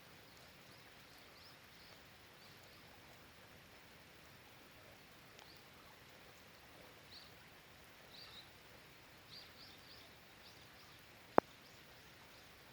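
Faint, steady hiss of rain, with scattered soft high chirps in the middle and later part. Near the end a single sharp tick, the loudest sound, like a drop striking something hard close by.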